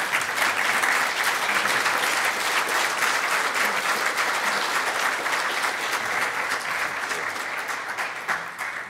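Audience applauding: many people clapping steadily, dying away near the end.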